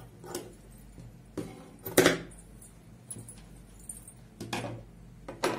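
Scissors cutting fabric: a few separate metallic snips and clinks, the loudest about two seconds in.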